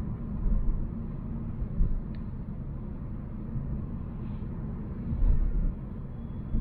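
Volvo C70 on the move: a steady low engine and road rumble, with a few louder low thumps.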